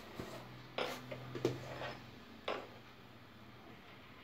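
Quiet handling of cloth: fabric being laid over a lining and smoothed on a tabletop, with three soft rustles or taps about a second apart over a faint steady low hum.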